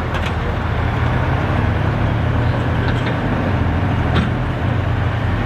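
Massey Ferguson pulling tractor's diesel engine running steadily while hooked to the sled at the start line, getting a little louder about a second in.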